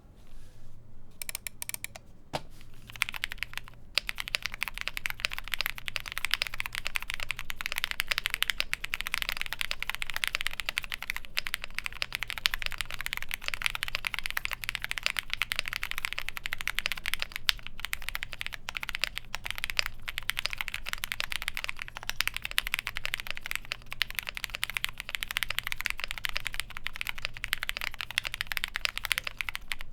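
Steady typing on an MMStudio Class80 mechanical keyboard with lubed Cherry MX Black linear switches, a gasket-mounted polycarbonate plate, foam and PBT keycaps: a fast, continuous stream of key clacks. It begins with a few scattered presses and settles into steady typing about three seconds in.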